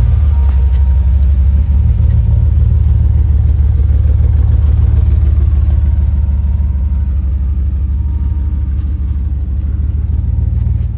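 Jeep Comanche pickup's engine running steadily with a loud low rumble, easing off a little about halfway through.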